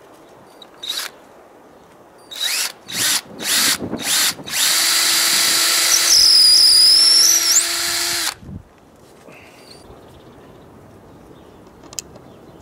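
Cordless drill driving a screw into wood: a few short bursts of the trigger, then about four seconds of steady running with a high squeal partway through, before it stops.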